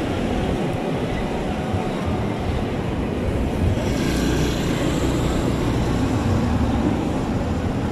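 Street traffic moving slowly. A minivan's engine runs close by in the second half as a steady low hum.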